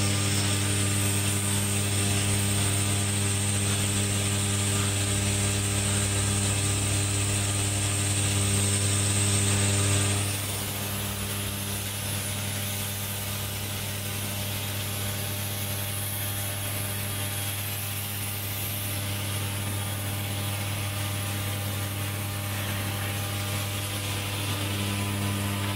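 Automatic micro pump assembly machine running: a steady low electric hum with mechanical clatter. A high whine stops about ten seconds in and the sound drops a little.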